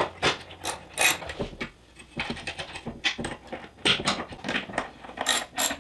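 Irregular metallic clicks and taps, several a second, of a wrench tightening nuts on 1/4-20 hex head bolts that hold an aluminium angle-iron rail.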